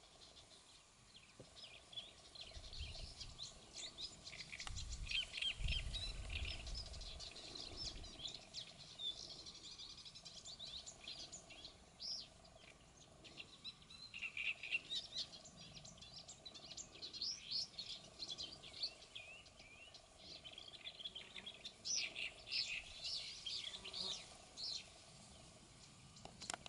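Great reed warbler singing: repeated phrases of quick notes with short pauses between them. A low rumble underlies the song for a few seconds near the start.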